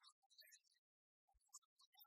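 Near silence, with faint scattered crackle.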